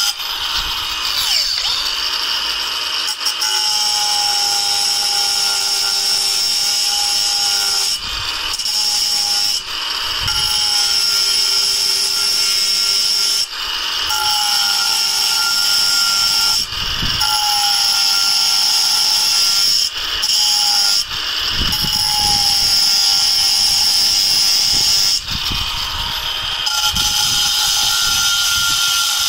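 Angle grinder with a cutting disc running and cutting through a stone coping slab: a loud, steady high whine whose pitch sags as the disc bites into the stone, with short dips every few seconds as the cut is eased off and resumed.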